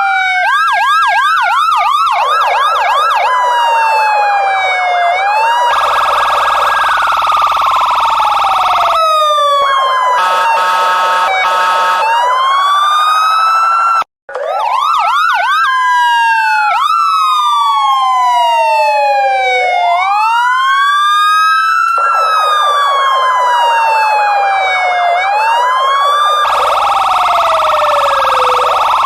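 Electronic police car sirens sounding loudly, switching between a quick yelp of several up-and-down sweeps a second, a slow rising and falling wail, and a fast warble. The sound cuts out for an instant a little before halfway, then carries on.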